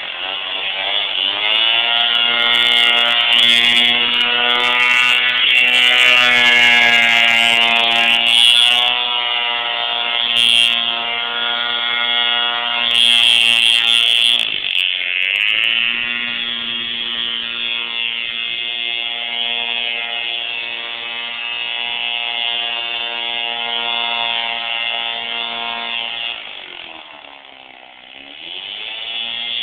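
Two-stroke chainsaw engine powering a small hovercraft, running at a steady high buzz. Its pitch drops briefly about fifteen seconds in, and again near the end it slows and then revs back up.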